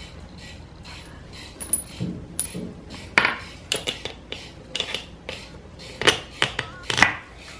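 Small steel bolts and CV joint hardware clinking and clicking as they are handled and fitted, a string of irregular sharp metallic knocks with the loudest about three, six and seven seconds in.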